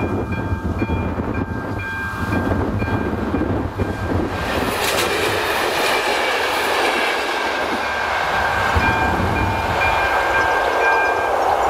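The crossing's electronic warning bell (AŽD ZV02) rings in a steady repeating tone, about two rings a second. About four seconds in, a ČD class 854 diesel railcar and its coach pass over the crossing, and their loud wheel-on-rail noise drowns out the bell for several seconds. The bell comes back as the train clears and stops shortly before the end.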